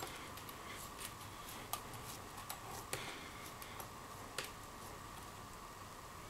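Plastic scoubidou lanyard strings being handled and threaded by hand: scattered, irregular light clicks and rustles, a few sharper clicks standing out, over a faint steady background hum.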